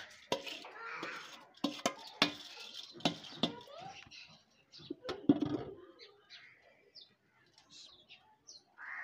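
Steel bowl and steel plate clinking and scraping against each other and the pot rim as soaked rice is tipped into a pot of boiling water, with a sharp clank about five seconds in. Birds chirping in the second half.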